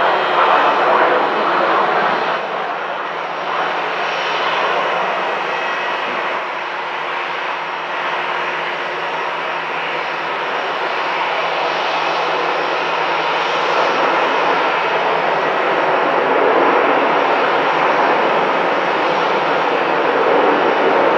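Jet airliner engines running, a steady loud rushing noise that eases a little in the middle and builds again toward the end.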